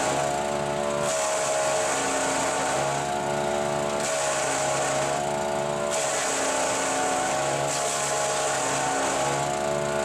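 Haecksler compact wood chipper running at full speed while conifer branches are fed into it. Its engine drone is steady and dips slightly under load, and a shredding hiss comes and goes every couple of seconds as each armful is chipped.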